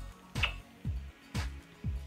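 Background music with a steady electronic beat: a low kick drum about twice a second, with a sharper clap-like hit on every other beat.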